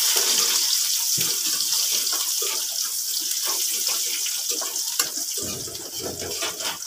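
Chopped onion sizzling in hot oil in a karahi, the sizzle slowly dying down as it fries, with a metal spatula scraping and clicking against the pan.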